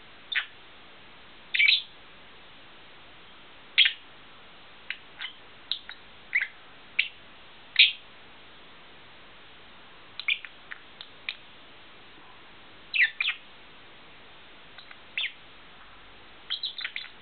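Fischer's lovebird giving short, sharp chirps at irregular intervals, some single and some in quick runs of two or three.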